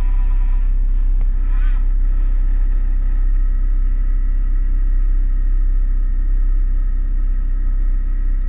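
Steady low drone inside a car with the BESTEK 150W power inverter's cooling fan running, a thin steady whine sitting over the rumble.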